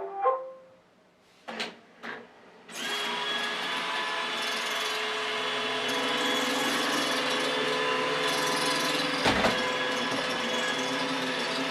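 iRobot Roomba e5 robot vacuum starting up: the end of its start-up tones, two clicks, then from about three seconds in its suction motor and brushes running steadily with a whine, with one knock near nine seconds. This is the machine on genuine brushes, which halve its grinding 'gagaga' noise but bring on a squeaking 'kyuru-kyuru'.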